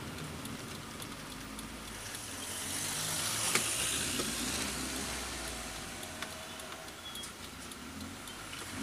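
Cabin sound of a first-generation VW Voyage under way: the engine's low, steady running note with road and tyre noise. The noise swells a few seconds in and then eases off.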